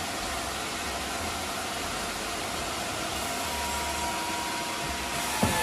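Steady, even noise of sawmill machinery running while a freshly sawn mahogany slab is handled, with a short knock near the end.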